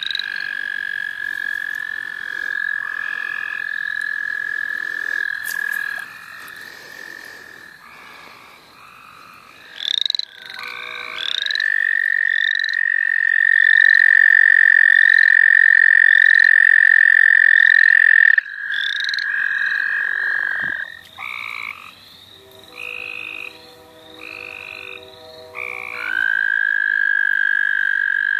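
Spring night chorus of frogs and toads: long, steady trills of American toads, each held for several seconds, with the loudest in the middle. Between the trills come shorter, rising calls of other frogs.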